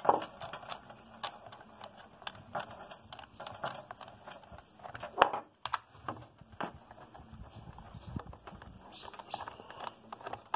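Hands working on the bar nut and studs of a Stihl MS 194 T chainsaw: scattered light metal clicks and clinks, with a sharper knock right at the start and the loudest about five seconds in.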